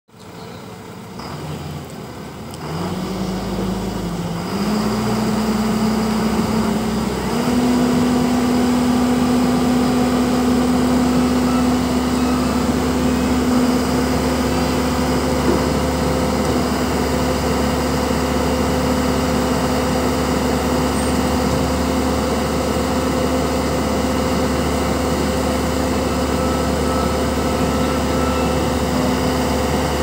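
AJAX Argo 4300 self-loading concrete mixer's diesel engine speeding up in steps over the first several seconds, then running steadily at high revs.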